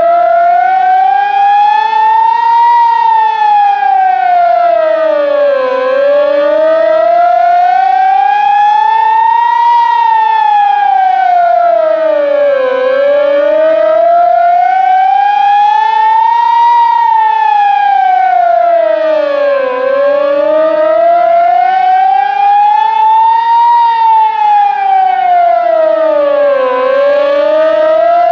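Klaxon ES2S COMAH siren sounding its wail tone, the off-site warning for a major chemical hazard. The pitch rises slowly for about four seconds and falls for about three, over and over, about four full cycles.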